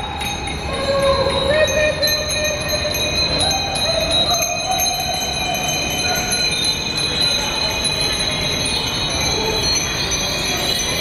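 Many bicycle bells ringing over and over from a crowd of passing cyclists, under a road bridge.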